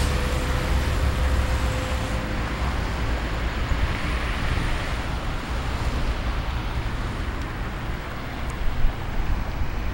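Steady road traffic from a busy multi-lane road: cars, vans and buses passing beneath, an even wash of engine and tyre noise with a low rumble, and a couple of brief bumps near the end.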